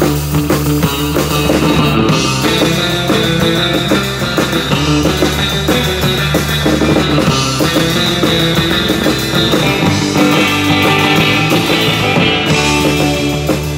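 Live surf rock instrumental played by a small band: twangy electric guitar lead over a second electric guitar and a Ludwig drum kit, loud and driving without a break.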